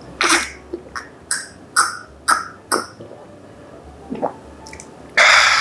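Close-miked wet chewing, a run of short smacking mouth sounds about two a second, then a louder, longer rush of noise near the end.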